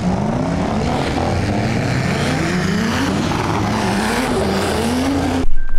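Drift car engine revving up and down again and again as the car slides on a wet track, over a steady rush of tyre and spray noise. It cuts off abruptly near the end.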